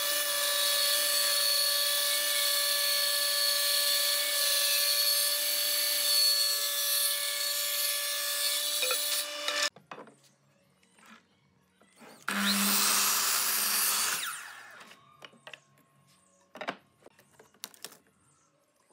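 Table saw running steadily while ripping a wooden board lengthwise: a steady motor hum with the hiss of the blade cutting, ending abruptly about ten seconds in. About two seconds later a sliding miter saw runs for roughly two seconds and then winds down, followed by a few light knocks of wood being handled against its fence.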